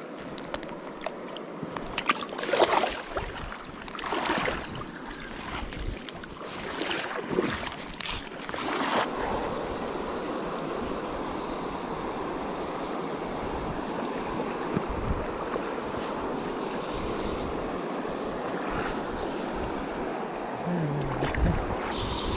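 River current rushing and swirling around a wading angler's legs. There are several irregular splashes in the first nine seconds or so, then a steady rush of flowing water.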